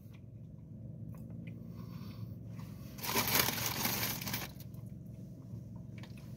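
A burst of rustling and crinkling from packaging being handled, starting about three seconds in and lasting about a second and a half, over a low steady background hum.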